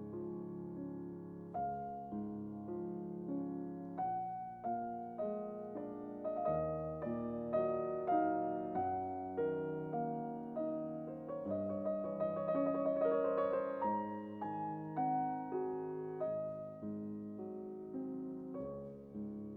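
Background piano music: a melody of single notes over held lower notes, busier and a little louder in the middle.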